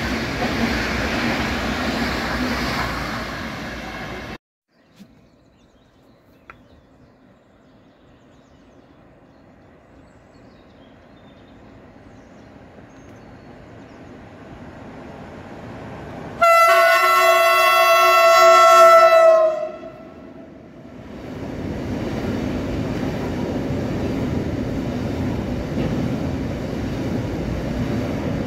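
A passing passenger train's rumble cuts off about four seconds in; then a locomotive hauling tank wagons approaches, growing slowly louder, and sounds a loud multi-tone horn for about three seconds, after which its freight train rumbles past.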